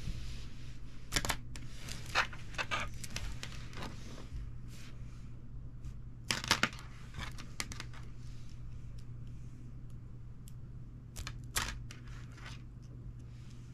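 Two coiled plastic stim springs being stretched, twisted and rubbed together by fingers: irregular crackling clicks and rustles as the coils slip and snap against each other and the wooden tabletop, with a cluster of louder clicks about six seconds in. A steady low hum runs underneath.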